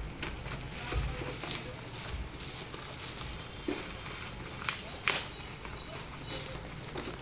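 Packing material being handled while a keyboard is unboxed: irregular rustles, crinkles and light knocks, with a loud crackle about five seconds in, over a low steady hum.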